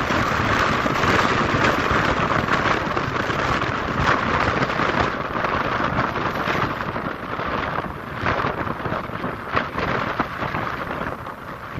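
Strong gale-force wind, around 20 m/s, buffeting a smartphone's microphone: a loud, rough rushing and rumbling that surges and dips with the gusts and eases slightly in the second half.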